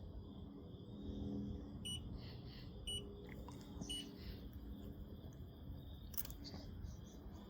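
A sleeping Staffy-type puppy breathing and snoring softly. Three short, high electronic beeps sound about a second apart, a couple of seconds in.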